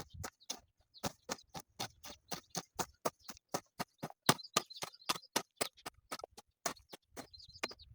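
A rapid, fairly even run of sharp clicks or knocks, about four to five a second.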